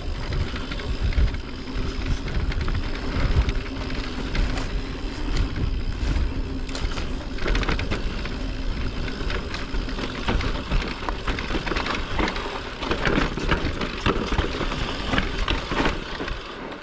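Mountain bike being ridden on a dirt trail: wind buffeting the microphone, with steady tyre noise and frequent clicks and knocks from the bike rattling over bumps.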